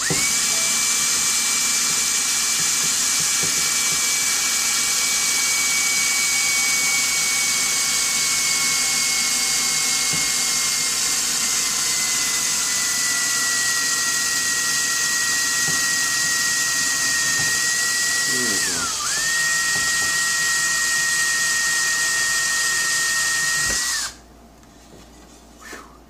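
Cordless drill boring a knob hole into a wooden cabinet door, its motor whining steadily with the pitch slowly drifting down. About three-quarters of the way through it briefly slows and picks up again, then it stops suddenly.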